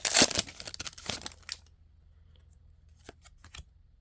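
A foil trading-card pack wrapper tearing and crinkling as it is ripped open, stopping about a second and a half in. A few faint clicks follow near the end.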